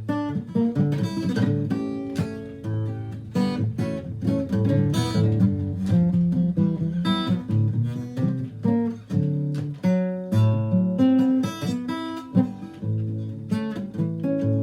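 Acoustic guitar playing an instrumental passage of picked notes and strummed chords, with no singing.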